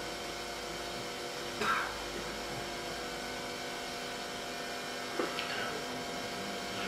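Steady electrical hum with a hiss of background noise, broken by two short, faint sounds, one near two seconds in and one about five seconds in.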